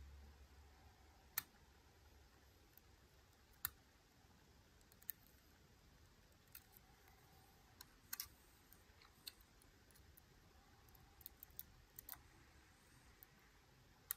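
Faint, irregular metallic clicks of a lock pick working the pins inside a Miwa U9 lock cylinder under tension: a dozen or so single ticks, the sharpest two in the first few seconds and a small cluster near the end.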